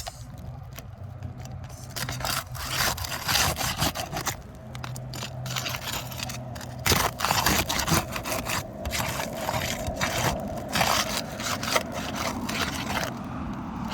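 Roof shingle being pried up by hand with a tool, giving repeated irregular scraping and crackling. The shingle is still held by nails and will only lift so far.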